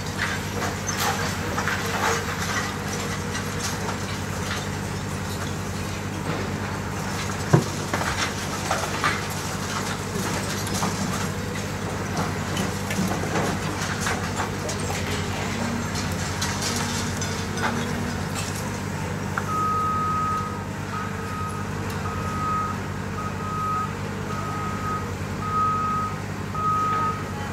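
Diesel engine of a CAT 340F high-reach demolition excavator running steadily while its attachment breaks up concrete, with scattered cracks and debris falling and one sharp crack about seven and a half seconds in. From about twenty seconds in a machine's reversing alarm beeps regularly, roughly once a second.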